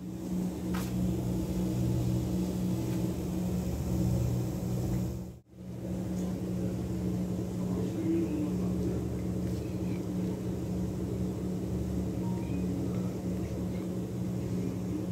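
Steady hum of supermarket refrigerated display cases, a low drone made of a few constant pitches. It drops out briefly about five and a half seconds in.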